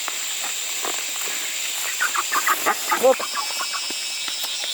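Domestic poultry calling: a quick run of short clucking or quacking calls about two seconds in, the last one the loudest.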